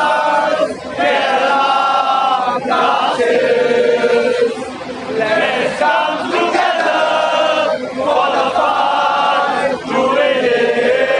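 Crowd of football supporters, mostly men, chanting and singing together in unison, in repeated phrases with short breaks about every two seconds.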